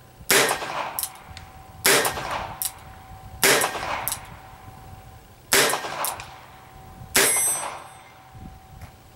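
A Colt Officer's Model target revolver in .22 Long Rifle is fired five times, the shots about one and a half to two seconds apart. Each sharp crack is followed by a brief ringing echo.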